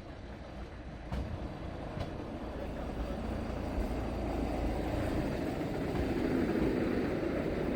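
Class 495 electric rack railcar running on the track, its rumble growing steadily louder.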